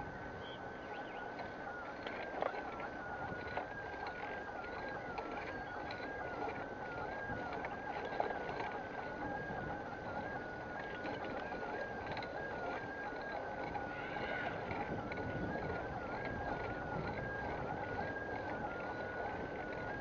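Riding noise from a bicycle heard at the handlebar-mounted camera: rumble of tyres on the path and brick paving, with small rattles and clicks, and a thin steady whine that wavers a little in pitch throughout.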